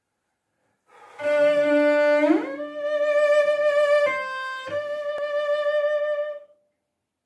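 Solo cello, bowed: a low held note slides up an octave, then a long high note with vibrato, stepping briefly down to a lower note before returning and ending.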